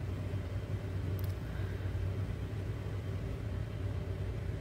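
Steady low hum and rumble of a shop's background noise, with no single clear source.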